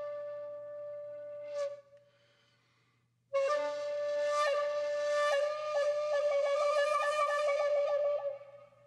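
Background flute music: a long held note that stops about a second and a half in, then after a short pause a new held note that breaks into a fast trill of about five pulses a second before fading near the end.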